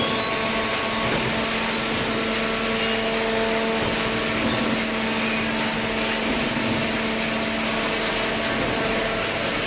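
Cardboard baler running: a steady machine hum with a constant tone over an even whirring hiss, typical of an electric motor driving a hydraulic pump.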